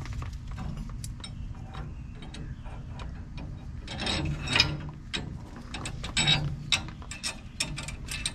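Irregular metal clicks and clinks of nuts and washers being fitted by hand onto the U-bolts of a Hellwig helper spring on a truck's rear leaf spring.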